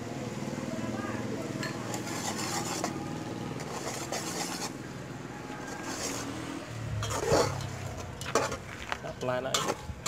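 Metal spatula stirring and scraping chicken pieces in a large metal pot, with clanks of the spatula against the pot. The knocks get louder and more frequent in the second half.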